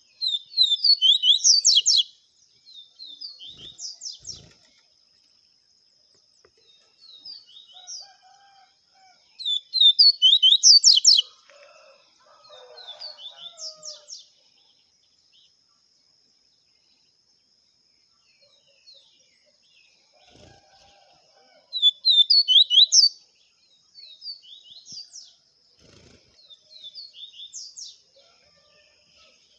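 Double-collared seedeater (coleiro) singing its 'viviti' song: three phrases of fast, sweeping high notes, at the start, about ten seconds in and about twenty-two seconds in. Each phrase opens loud and trails off into quieter notes.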